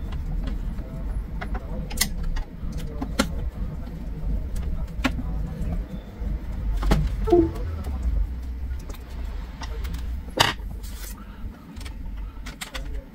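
Cables being handled and plugged into the rear ports of an all-in-one PC: scattered clicks and knocks of connectors over a steady low rumble, with the sharpest knock about ten seconds in.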